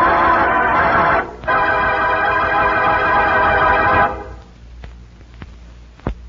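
Organ music bridge: a held chord that breaks off about a second in, then a second held chord that ends about four seconds in. After it comes low hum and hiss with a few sharp clicks.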